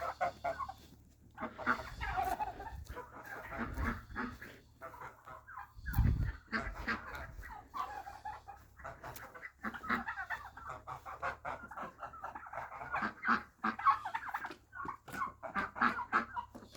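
Chickens clucking continually in short, repeated calls as they are herded, with a few low thumps.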